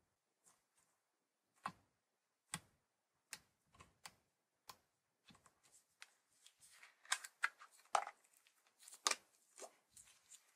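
Hands handling a plastic slime tub, fingernails clicking against the plastic about once a second. Then comes a denser run of sticky crackles and pops, loudest near the end, as the white slime is worked loose and slid out of the tub.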